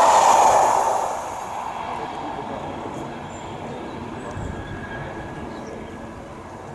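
Rolling noise of a rake of SNCF Corail passenger coaches passing at speed, a loud rush of wheels on rail that falls away about a second in as the last coach goes by. A fainter rumble follows as the train draws away.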